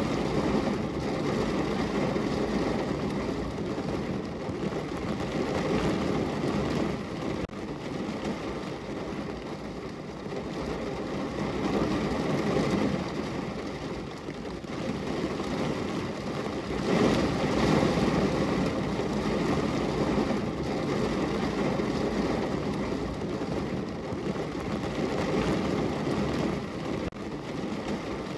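Rain falling against a window: a steady rushing patter, heaviest in the low range, that swells and eases every few seconds.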